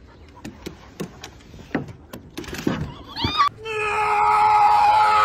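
A single long, steady, high-pitched cry that starts about three and a half seconds in and is held at one pitch, loudest of all, after a few scattered clicks and short rising squeaks.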